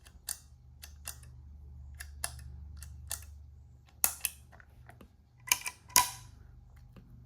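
Guitar pedal footswitches being stomped on one after another: about nine sharp mechanical clicks, the loudest a little past halfway and near the end, over a steady low electrical hum from the powered-up rig.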